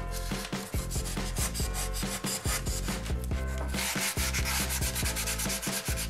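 Sandpaper rubbing back and forth on a polystyrene foam boat hull, in quick repeated strokes.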